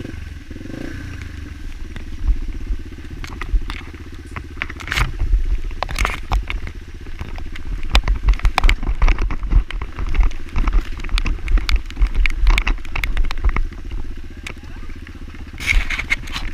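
Single-cylinder four-stroke trail motorcycle engine running as the bike rides, with frequent sharp knocks and crackles and heavy uneven low thumps over it.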